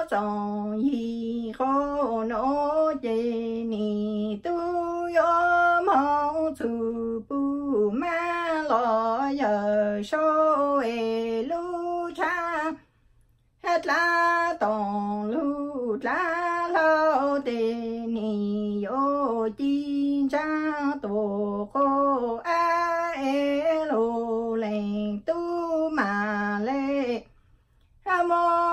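A woman singing Hmong lug txaj (chanted sung poetry) solo and unaccompanied, in long held notes that slide and waver between pitches. She breaks off briefly twice, about 13 seconds in and near the end.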